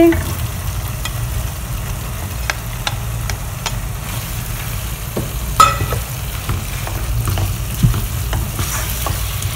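Okra pieces tipped into hot frying masala and stirred with a spatula in a pan: a steady sizzle with scattered scrapes and taps of the spatula, one sharper knock about five and a half seconds in, over a low steady hum.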